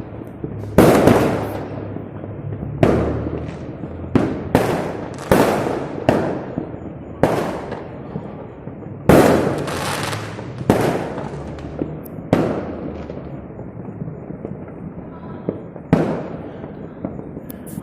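Firecrackers and fireworks going off: more than a dozen loud, sharp bangs at irregular intervals, each trailing off in a long echo.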